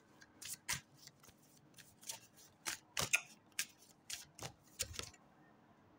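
Tarot cards being handled: a run of quick, irregular flicks and taps for about five seconds, which then stops.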